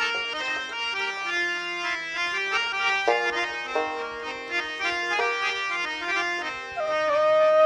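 Instrumental introduction to a Bengali baul song: a free-reed instrument plays a melody of held notes, ending on a louder long-held note.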